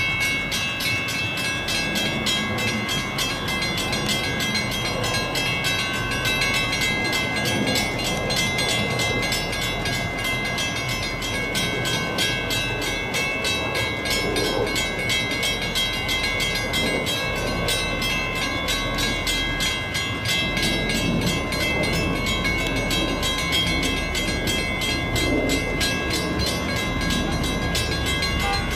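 Grade-crossing warning bells ringing in a fast, even rhythm as a Metra diesel commuter train approaches. The locomotive's low rumble grows louder near the end.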